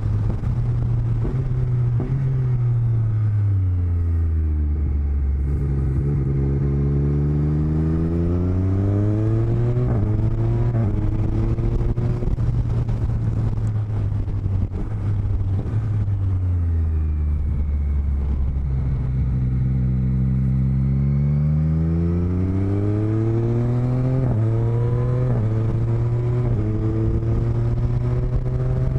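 Motorcycle engine heard through helmet-mounted microphones: the revs fall away over the first few seconds, run low for a long stretch, then rise again with several quick upshifts in the last few seconds, over a steady wind rush.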